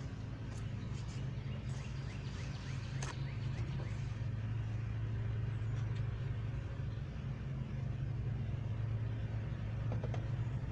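A steady low hum with a few light clicks and short faint chirps in the first few seconds.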